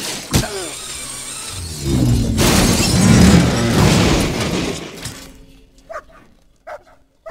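Film sound effects of a rope snare yanking a man off his feet and swinging him upside down: a sharp hit, then a loud rushing noise that swells for a couple of seconds and fades away, with a few short cries near the end.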